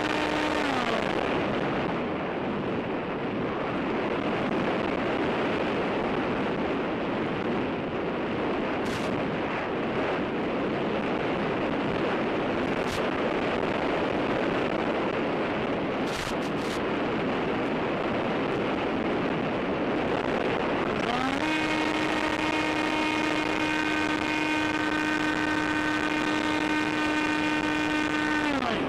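Electric motor of the AXN model plane, which is losing a magnet, running with a steady whine that winds down about a second in as the motor is cut. A steady rushing noise is left while the plane glides. About 21 seconds in the motor whine winds back up, holds steady, and cuts off right at the end.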